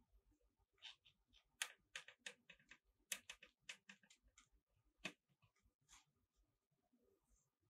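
Faint, irregular small clicks and smacks from a litter of nursing kittens jostling at their mother, coming thickly from about a second in and thinning out after about six seconds.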